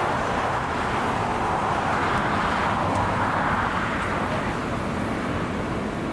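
Jet airliner engine noise: a loud, steady rush that eases slightly after about four seconds.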